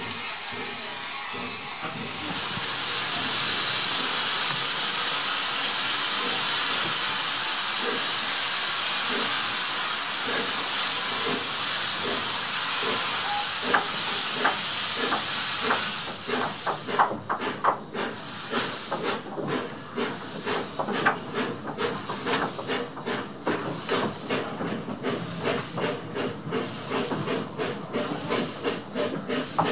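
Steam tank locomotive hissing loudly and steadily with escaping steam, then, about halfway through, the hiss gives way to regular exhaust chuffs, roughly two to three a second, as the engine gets under way.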